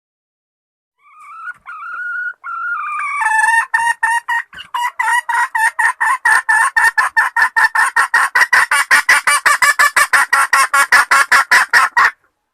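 Female junglefowl calling, a call the uploader takes for a hen inviting mating: a few short notes rising in pitch, then a long run of rapid clucks, about five a second, that stops suddenly near the end.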